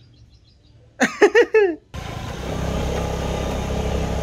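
A motor scooter being ridden: its small engine runs steadily under wind and road noise, which start abruptly about two seconds in. Just before, a short voice is heard over faint bird chirps.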